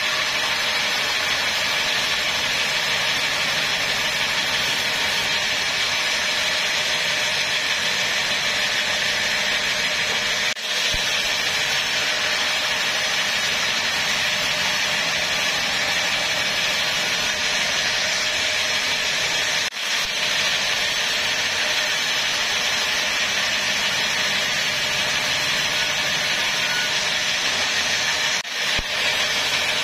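Large sawmill band saw running and cutting lengthwise through a teak log: a steady high hiss of the blade in the wood over the machine's low drone, broken by three very brief dips.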